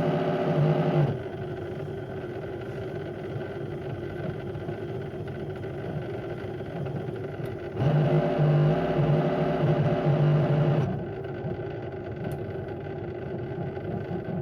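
Beko WM74135 washing machine turning its drum during a wash, its motor whining loudly in two stretches of about three seconds each, with quieter running noise in between as the drum reverses.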